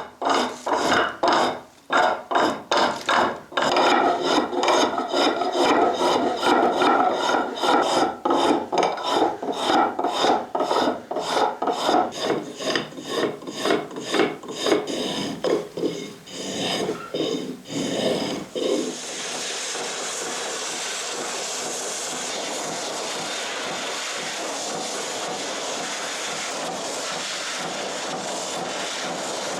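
Rapid back-and-forth strokes of a hand file, a couple of strokes a second, for most of the first twenty seconds. Then a steady, even rushing noise takes over.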